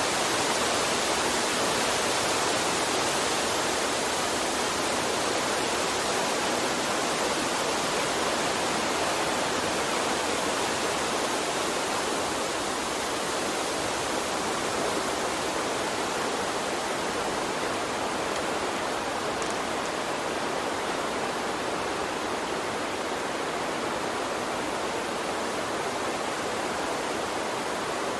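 Running water of a stream, a steady even rushing hiss with no breaks or distinct splashes.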